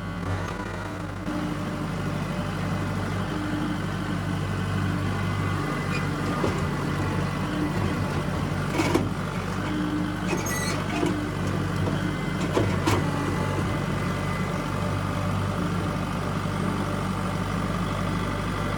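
Tractor engine running steadily under way, with a few sharp clanks from the machine near the middle.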